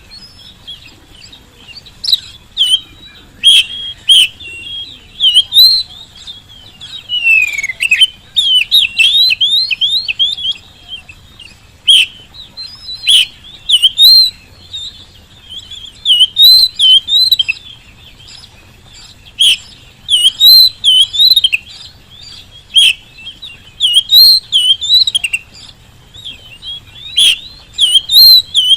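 Oriental magpie-robin (kacer) in full song: loud bursts of rapid, varied whistled phrases mixed with sharp clicks, broken by short pauses.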